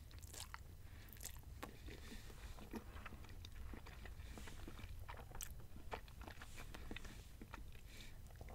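A person chewing a mouthful of spaghetti and sausage: faint, wet mouth clicks and smacks at an irregular pace.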